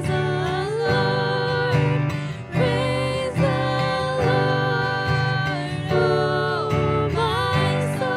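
Live worship music: a woman singing a melody with sliding notes over keyboard accompaniment.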